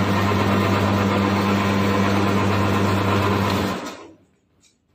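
Electric motor of a 4 HP wire stripping machine running with a steady hum and whir, then cutting out about four seconds in.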